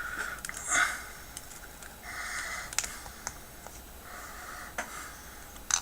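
Faint handling noises from a dismantled outdoor faucet's parts: a few light clicks and taps.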